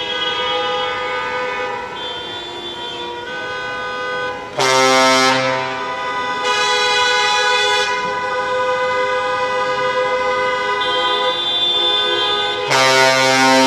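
Traffic-jam car horns honking at once, long overlapping held blasts. Louder, deeper horns join about four and a half seconds in, again briefly about two seconds later, and once more near the end.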